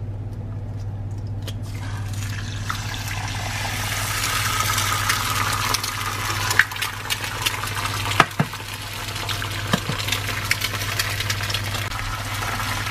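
Eggs frying in hot oil in a nonstick pan, sizzling. The sizzle starts about two seconds in and grows louder, with a few sharp pops and clicks. A steady low hum runs underneath.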